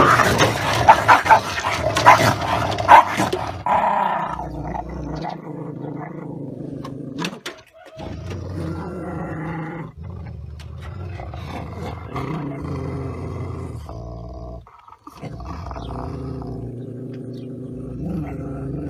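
A chihuahua and a large black dog in a confrontation. The first few seconds are loud snarling and barking. After that comes long, steady growling that pauses briefly a few times: a warning as the small dog stands its ground.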